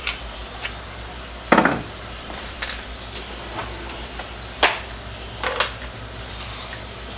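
Scattered knocks and clicks of kitchen items being handled and set down on a counter, about seven in all, the loudest about a second and a half in, over a low steady hum.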